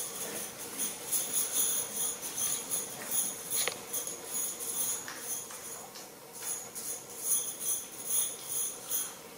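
Small bells jingling in irregular shakes, with a short lull around the middle; the jingling stops near the end.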